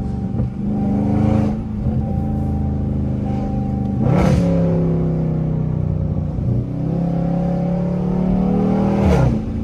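Dodge Charger Scat Pack's 392 (6.4 L) HEMI V8 engine and exhaust heard from inside the cabin while driving. Its note climbs and then drops sharply three times, about a second in, about four seconds in and near the end, as it changes gear, with a brief burst of exhaust noise at each change.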